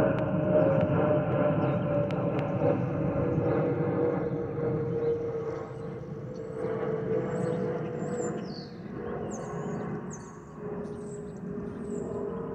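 Airbus A320-232 passing overhead, a steady whistle sliding slowly down in pitch over the fading rumble of its jet engines: the FOPP whistle, air blowing across the fuel over-pressure protector vent cavities under the wings. Birds chirp in the second half.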